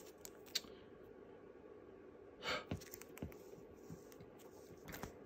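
Faint handling of trading cards: a few light clicks and rustles as cards are shifted in the hand, over a low steady room hum, with one short soft rush of noise about two and a half seconds in.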